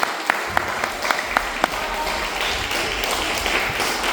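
A hall full of young schoolchildren applauding, with a few sharp individual claps standing out over the crowd's clapping in the first second and a half.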